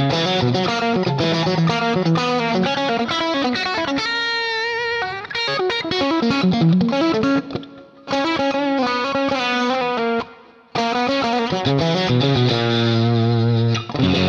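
Ibanez electric guitar strung with Ernie Ball Regular Slinky strings, played through a multi-effects processor with a distorted tone. It plays a fast lead line with a held note bent into wide vibrato about four seconds in, two short breaks, and a long sustained note near the end.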